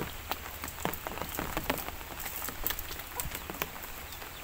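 Irregular patter of water drops and small splashes, many sharp ticks a second over a steady hiss.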